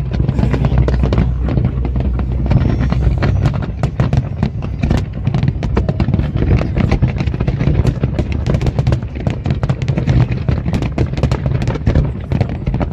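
Fireworks display: a dense, unbroken barrage of bangs and crackles with a heavy low rumble underneath.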